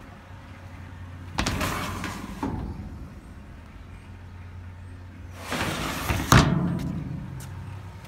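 Sliding side door of a steel dumpster scraped open, then about four seconds later scraped shut, ending in a loud metal bang.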